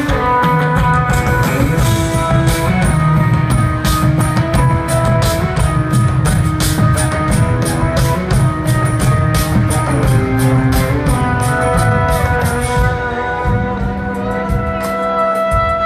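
A jazz-fusion band playing live through a large PA: guitar and keyboards over a steady drum-kit beat. About thirteen seconds in the drums thin out and a long low note holds.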